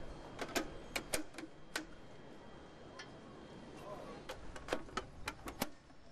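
Sharp plastic-and-metal clicks and light knocks of sign modules being slid and snapped into place on a modular sign post, in two quick runs: one about half a second in and one about four to five and a half seconds in, over faint street noise.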